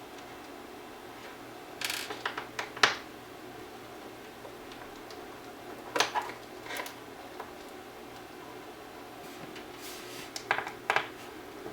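Screwdriver working the screen-mounting screws out of an iMac's frame: small sharp clicks and clinks in three short clusters, about two seconds in, around six seconds, and near the end.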